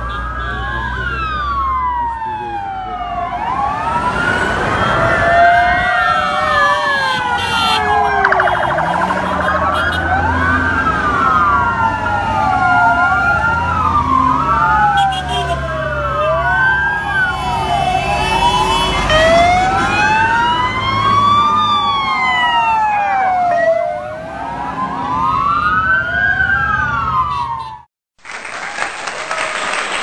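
Several fire-engine sirens wailing at once, each rising and falling and overlapping the others, over a low rumble of engines. They stop shortly before the end, and applause starts.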